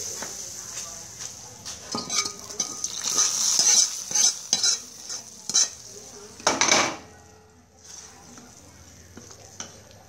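Metal utensil scraping and tapping against a wok, over a fading sizzle from the hot pan, then a louder clatter about six and a half seconds in as the wok is set back down on the stove.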